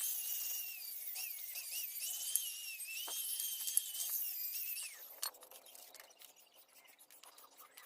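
A small high-speed power tool working steel, with a high whine that wavers in pitch under load and stops about five seconds in. Faint scraping strokes follow.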